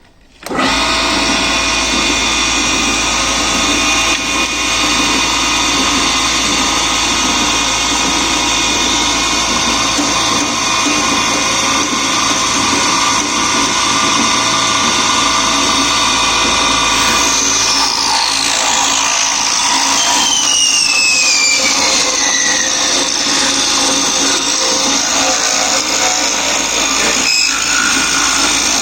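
Cane milling (sizing) machine switching on about half a second in and then running steadily with a dense, high whine. From about 17 seconds in, a few tones glide downward over a couple of seconds each.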